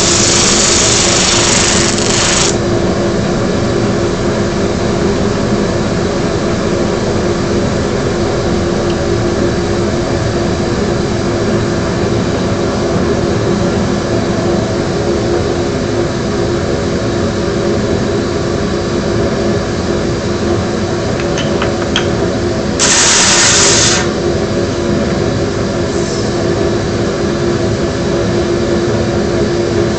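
Homemade 20-inch disc sander with an 80-grit abrasive disc running steadily together with a dust collector, giving a constant motor hum. A loud abrasive hiss of wood being ground against the disc fills the first couple of seconds and comes back once, for about a second, near the 23-second mark.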